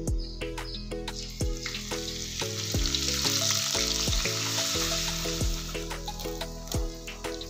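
Hot oil sizzling and frying in a clay pot. The sizzle swells for a few seconds as a spoonful of paste and then sliced onions are dropped in. Background music with a steady beat plays over it.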